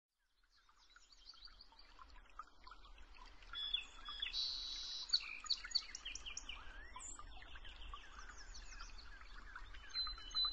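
A chorus of songbirds chirping and trilling, many short repeated notes overlapping, fading in from silence over the first second or so.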